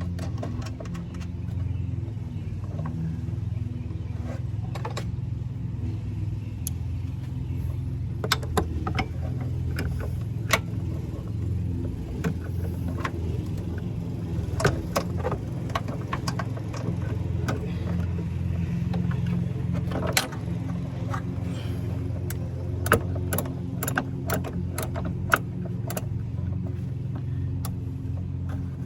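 Metal tools and hardware clicking and clinking in scattered sharp taps while hood latches are worked on, over a steady low engine hum.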